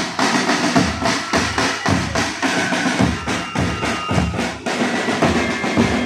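Marching band drum section playing a marching beat on snare drums and bass drum, the bass drum thudding about twice a second under rapid snare strokes.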